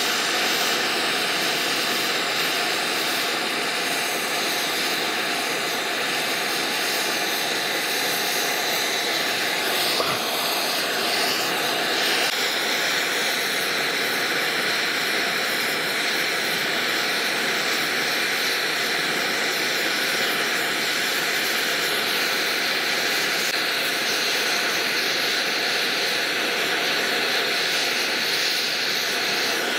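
Oxy-fuel torch with a rosebud heating tip burning with a steady roaring hiss, its flame played on a cast iron valve part that is being heated and built up with cast iron filler rod. The hiss grows a little brighter about twelve seconds in.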